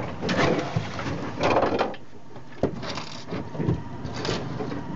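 Shrimp pot line running out over the boat's rail in a string of irregular swishes about a second apart, with one sharp knock about two and a half seconds in.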